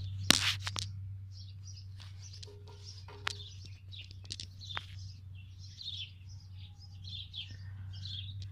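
Small birds chirping over and over in quick short calls, with a few sharp clicks in the first second and a steady low hum underneath.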